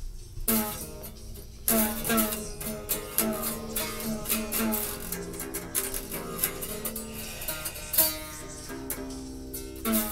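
Guitar strings plucked note by note, each note ringing and fading. The playing starts about half a second in.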